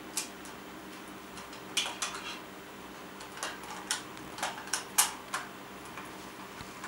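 Irregular small clicks and taps of a plastic alarm clock case being handled, with AA batteries pressed into its battery compartment. A faint steady hum lies underneath.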